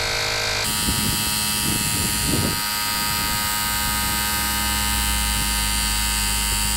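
Fanttik X8 Apex cordless tyre inflator running steadily, its small electric compressor pumping air into a car tyre toward a set pressure of 42 psi, with a constant buzzing hum.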